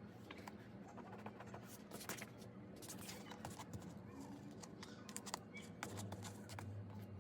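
Paper and sticker handling on a journal page: scattered soft clicks, taps and crinkles at irregular intervals, over a low steady hum.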